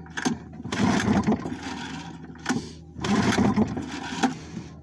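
An old two-cylinder outboard engine being pull-started twice: each yank of the recoil starter cord cranks it over briefly, and it doesn't catch. The owner suspects fuel isn't getting through, since both plugs come out dry.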